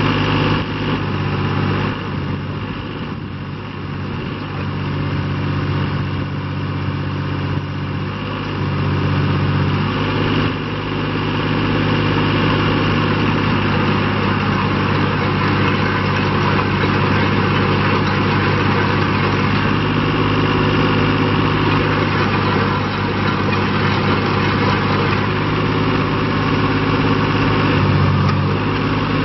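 Diesel engine of a Vermeer RT450 ride-on trencher running steadily while the hydraulic digging boom is lowered and raised; its note shifts slightly a few times, and it runs louder from about ten seconds in.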